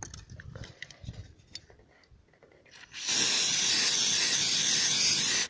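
Aerosol silicone lubricant spraying in one steady hiss of about two and a half seconds, starting about three seconds in and cutting off sharply. It is being sprayed onto a squeaking handbrake cable to stop the squeak. A few faint clicks come before it.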